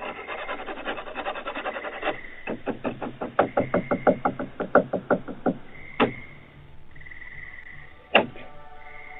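Rapid knocking picked up by a security camera's microphone. A quick run of sharp knocks, about five a second for some three seconds, is followed by two single, louder knocks.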